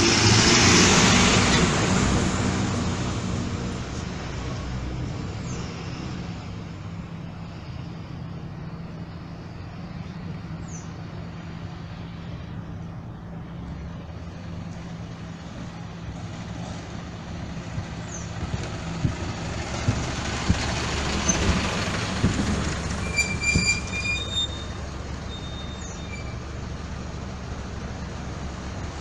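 City bus drives past close by, its diesel engine loud at first and then fading away, leaving a steady low engine rumble from buses in the street. Later the rumble swells again as another bus comes up, and its brakes give a few short high-pitched squeals.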